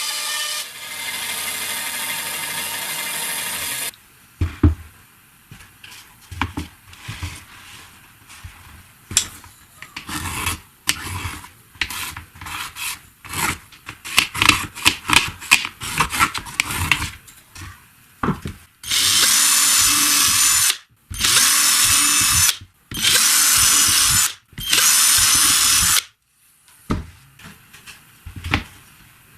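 A power tool runs steadily for about four seconds and then stops, followed by a stretch of irregular clicks and knocks of handling. Near the end there are four short bursts of a power tool, about a second and a half each.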